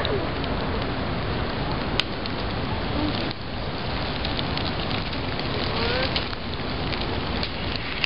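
Large wood bonfire burning: a steady rushing hiss with sharp pops and crackles scattered through it, one louder crack about two seconds in.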